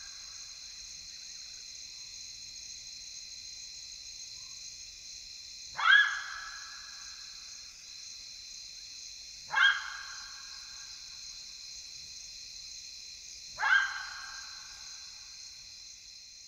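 Side-striped jackal calling: three short calls about four seconds apart, each starting sharply and trailing off quickly.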